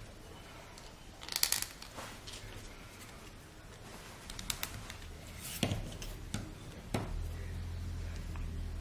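Scattered light clicks and taps of small kit parts being handled, as wooden dowels are fitted into the holes of a windup car kit's side panel. A low steady hum comes in about seven seconds in.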